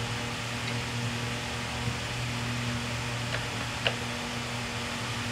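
Steady low electrical hum with a hiss of shop background. Two light clicks come through, one about two seconds in and a sharper one near four seconds, from hand-tool work on the lathe gearbox.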